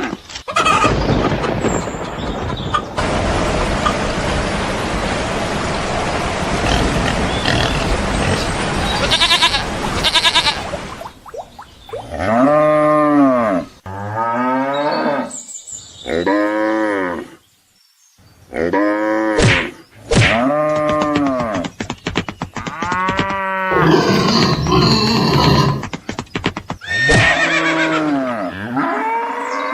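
A steady rushing noise for about the first ten seconds, then cattle mooing over and over, a string of calls about a second each, each rising and then falling in pitch.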